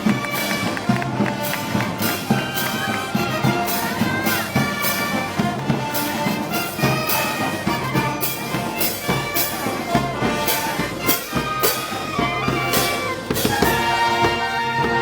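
Brass band music, trumpets and trombones playing a melody over a steady drum beat of about two strokes a second.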